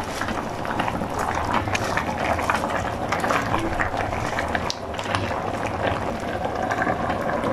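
Pan of miso-soured fish broth simmering, bubbling and popping steadily with a dense fine crackle.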